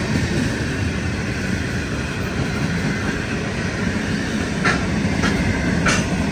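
Grain hopper wagons of a freight train rolling past: a steady rumble of wheels on rail. Near the end come three short, sharp, high-pitched metallic squeals.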